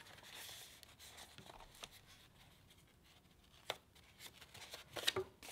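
Faint rustling and creasing of a sheet of paper being folded in half by hand, with a few light clicks, one near the middle and a few close together near the end.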